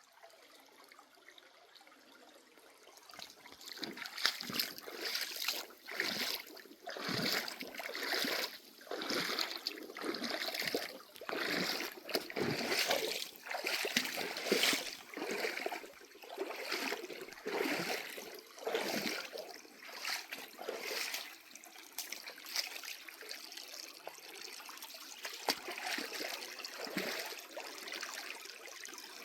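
Feet wading through a shallow, rocky creek, splashing about once a second with each stride, over the steady trickle of the stream. The splashing stops about three-quarters of the way through, leaving only the running water.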